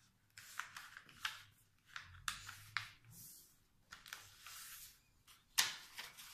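A sheet of paper rustling and crackling as it is folded and creased by hand, in a string of short scrapes and crinkles. The sharpest crackle comes near the end.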